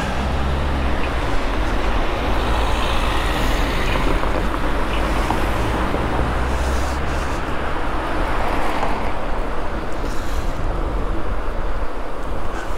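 Wind rushing over the microphone while riding along a city street, mixed with road and traffic noise. A low engine hum sits underneath for roughly the first half as traffic pulls away from the lights, then fades.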